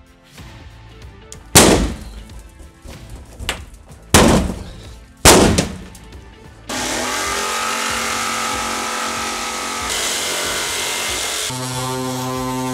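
Three sharp knocks over faint background music, about a second and a half, four and five seconds in. Then, about two-thirds of the way through, a cordless power tool starts and runs steadily against the cut edge of a composite partition panel. Its sound changes to a steadier pitched hum near the end.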